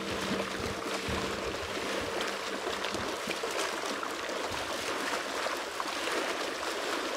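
Small waves lapping and fizzing on a sandy shoreline, with shallow water splashing around the feet. A faint steady hum lies under it and stops about three seconds in.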